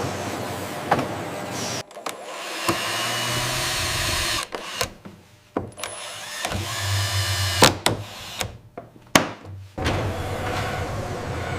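Factory machinery running, with a hum and noise that change abruptly every second or two, broken by several sharp knocks.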